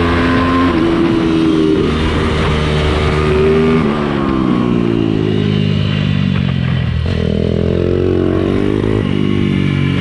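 Small off-road motorcycle engine running hard, its pitch climbing and then dropping back several times as it revs up and shifts or comes off the throttle.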